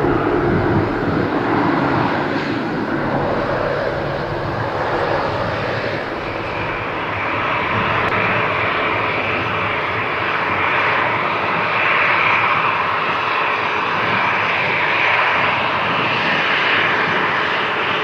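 Jet airliner engines. A rumbling roar in the first few seconds gives way to a steady, higher-pitched hiss from jets taxiing close by.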